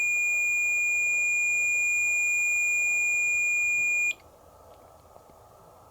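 MEL-8704 meter's REM alarm sounding as one steady, high-pitched electronic tone, then cutting off suddenly about four seconds in. The alarm means the field around the meter's REM antenna was disturbed, which the investigator takes as a spirit answering him.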